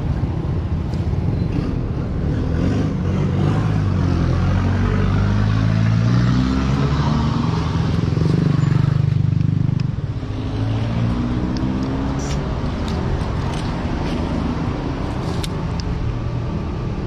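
Road traffic with motor vehicles passing, their engines rising and falling in pitch; one passes loudest about nine seconds in, then fades quickly.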